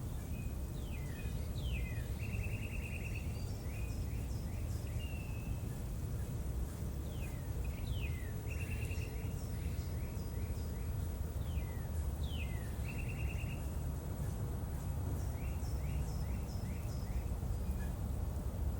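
A songbird singing the same short phrase about four times, a few seconds apart: quick sweeping notes followed by a fast trill. Under it runs a steady low outdoor rumble.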